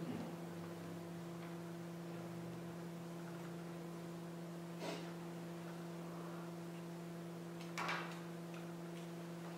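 A steady electrical hum with several overtones, broken by a few brief, soft knocks or rustles: one at the start, one about five seconds in and a slightly longer one near the end.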